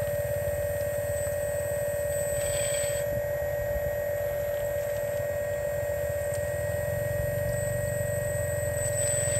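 Radio-controlled Hitachi excavator model's motor running with a steady, even hum as the boom and bucket move slightly.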